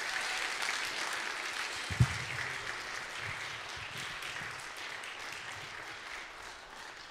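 Audience applauding after a song, the clapping fading away gradually, with a single low thump about two seconds in.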